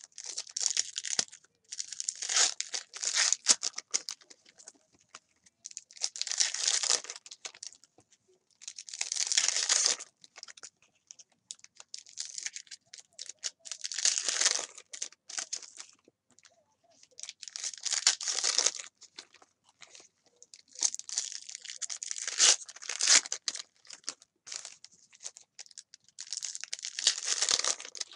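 Foil trading card pack wrappers from a Panini Select football box being torn open and crinkled by hand, in bursts every few seconds as one pack after another is opened.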